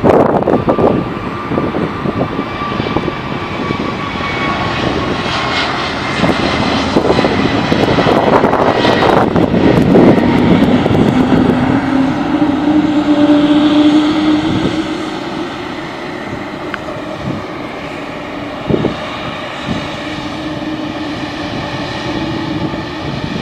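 Airbus A321neo's turbofan jet engines at takeoff thrust during the takeoff roll: a loud, dense engine noise with whining tones that slide in pitch, loudest about eight to fourteen seconds in. It then falls away to a lower, steady engine sound with a held hum.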